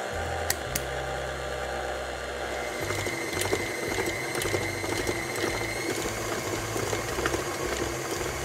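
KitchenAid stand mixer motor running steadily with a light ticking, mixing stiff sugar cookie dough as the added flour is worked in.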